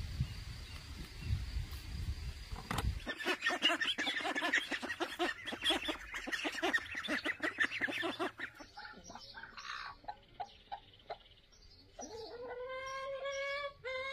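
Chickens clucking: after a low rumble in the first three seconds, a dense run of rapid clucking for about five seconds, then scattered single clucks and one long drawn-out call near the end.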